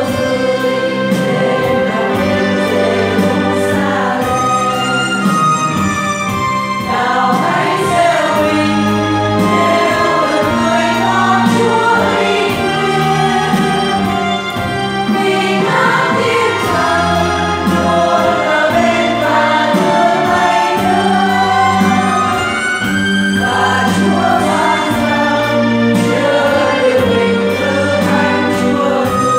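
Women's church choir singing a Vietnamese Catholic hymn together, holding long notes in a slow, continuous line.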